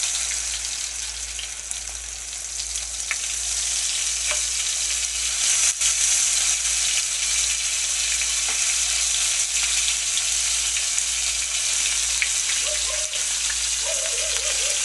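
Battered oyster mushroom tempura pieces sizzling as they fry in a pan of hot oil. The sizzle grows louder a few seconds in as more pieces go into the oil.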